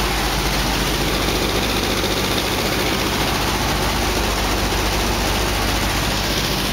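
The twin radial engines of a B-25J Mitchell bomber droning steadily in flight, heard from inside the cockpit as a loud, unchanging roar with a low engine hum beneath it.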